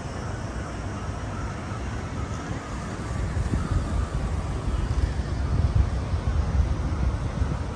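Road traffic at a city roundabout: car engines and tyres passing, with wind buffeting the microphone as a low rumble. It gets louder about halfway through, as cars pass close by.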